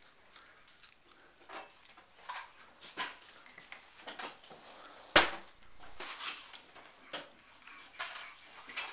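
Baby's doorway jumper knocking and creaking on its straps and frame in time with the baby's bounces, about once a second, with one loud knock about five seconds in.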